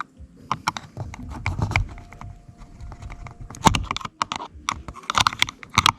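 Irregular plastic clicks and knocks from hand work on a car's interior door trim as a trim cover is popped off, with the sharpest knocks a little past halfway and near the end.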